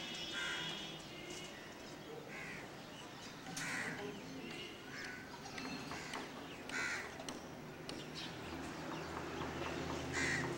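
Crows cawing: about six short calls scattered through, over a steady low hum.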